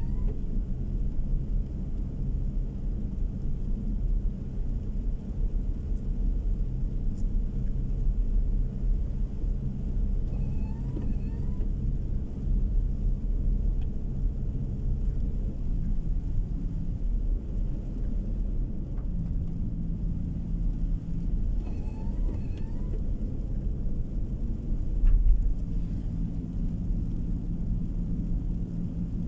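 Car driving on the road heard from inside the cabin: a steady low rumble of engine and tyre noise, the engine note shifting in pitch a few times.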